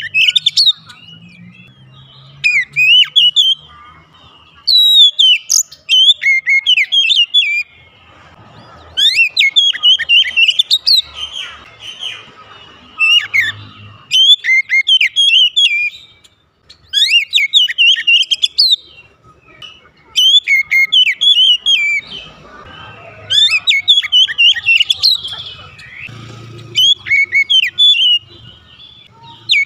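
Oriental magpie-robin singing: phrases of rapid, varied whistled notes that slide up and down, one phrase every two or three seconds with short pauses between.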